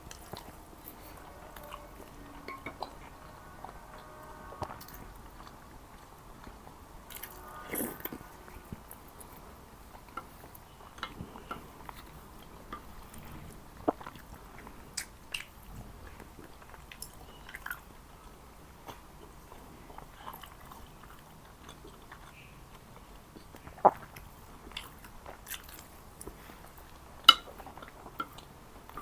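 Close-miked eating of Jordanian mansaf: chewing and biting with wet mouth clicks and smacks scattered throughout. Two sharp, louder clicks stand out near the end.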